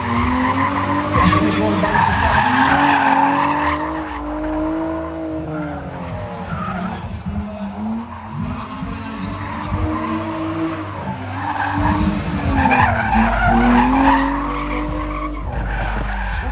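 A car engine revving hard, its pitch rising and falling about four times, with tyres squealing as the car slides around a gymkhana course. The squeal is strongest in the first few seconds and again near the end.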